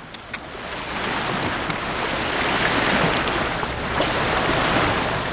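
Bow wave rushing and splashing along the hull of a sailing yacht under way, building over the first second and then holding steady.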